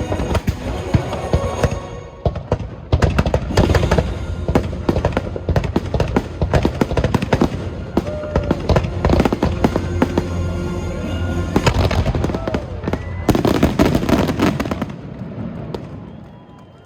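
Fireworks finale: a rapid barrage of firework bangs and crackles over the show's music, thinning out and stopping about fifteen seconds in.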